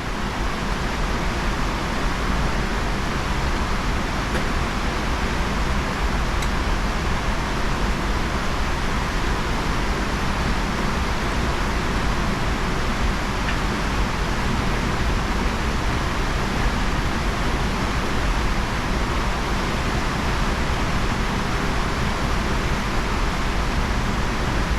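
Steady background rushing noise, an even hiss with a low rumble beneath it, with no gunshots or other distinct events.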